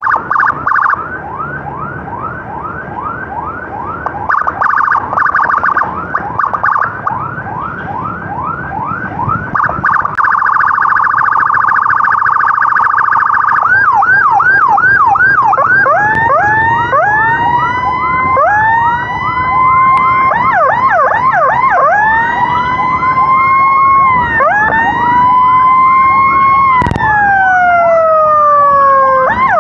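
Electronic emergency siren cycling through its tones: a fast yelp of about three sweeps a second, a rapid steady trill around ten seconds in, then long rising-and-falling wails from the middle on. A sharp click near the end comes just before one long falling wail, and the fast yelp starts again right at the end.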